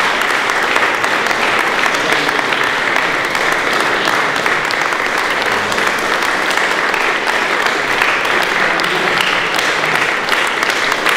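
Audience applauding: many people clapping steadily, without a pause.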